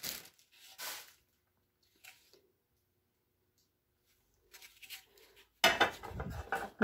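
A nonstick aluminium saucepan being lifted out of its cardboard packing and handled, with soft rustles and small clicks, a quiet stretch in the middle, and a cluster of louder knocks and rustles near the end.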